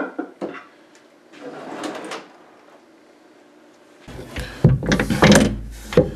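A wooden cabinet drawer on metal side slides knocks and then runs shut. After that come a series of knocks and clicks as a cabinet door is handled and swung open, the loudest near the end.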